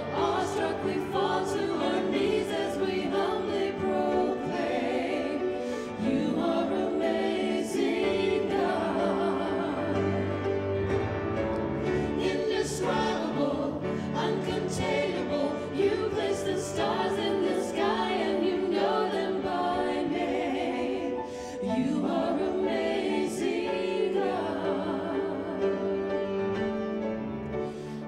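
A vocal trio of two women and a man singing, with grand piano accompaniment.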